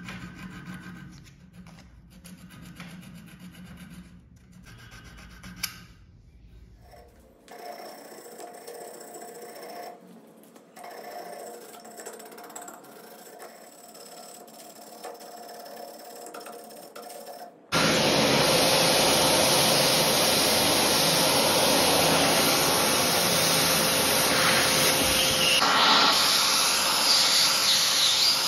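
Abrasive cloth rubbed back and forth along a steel knife blade clamped in a vise, quiet and rhythmic. About eighteen seconds in, a vacuum cleaner switches on abruptly and runs loudly and steadily, far louder than the hand work.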